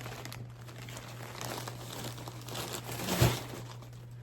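A large bag of packaged items crinkling and rustling as it is handled and pulled about, with a louder crackle and thump about three seconds in.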